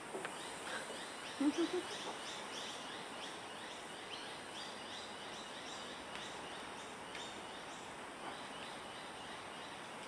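Outdoor background hiss with a high, short, falling chirp repeated a few times a second from a small calling animal, and three quick low blips about a second and a half in.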